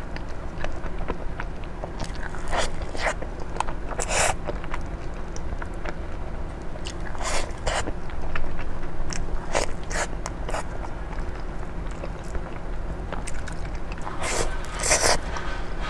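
Close-up eating sounds of a soft crepe towel roll filled with cream and fruit: bites and chewing with small sticky clicks. A few louder wet mouth sounds stand out, two of them close together near the end.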